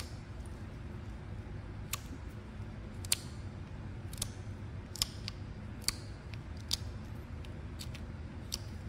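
Whittling knife taking short cuts across the end grain of a small wooden pointer to round over its tip, each stroke a crisp snick as a shaving comes away, roughly one a second.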